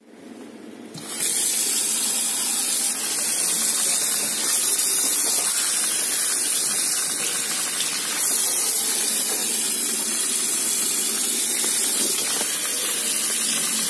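Kitchen tap running into a stainless-steel sink, the stream splashing over a rice-paper wrapper held under it to wet it. It comes on about a second in and then runs steadily.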